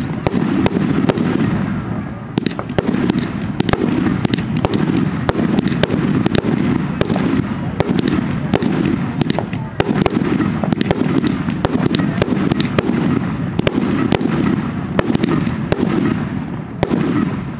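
Fireworks display in a rapid, continuous barrage: many sharp cracks over a steady low rumble of booming shells, easing off near the end.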